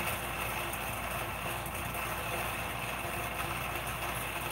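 Steady mechanical hum with a hiss, unchanging throughout, with no distinct events.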